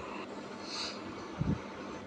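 Steady whir of a ceiling fan heard through a phone's speaker, with a short low thump about one and a half seconds in.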